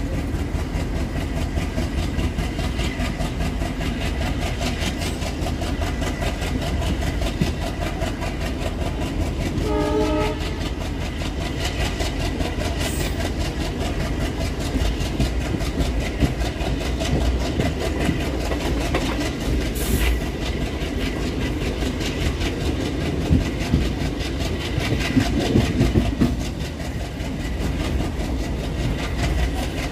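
Running noise of ICF passenger coaches on the rails: a steady rumble with rhythmic wheel clatter. A short horn note sounds about ten seconds in, and two sharp clanks come later.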